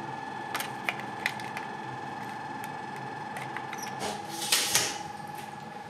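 Very noisy air conditioner running with a steady whine over a hiss. A few light clicks come in the first two seconds, and a short burst of noise about four and a half seconds in.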